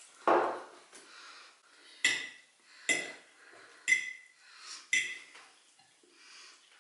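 Metal fork and spoon clinking against a ceramic plate while spaghetti is twirled: four sharp, ringing clinks about a second apart, after a brief dull thump right at the start.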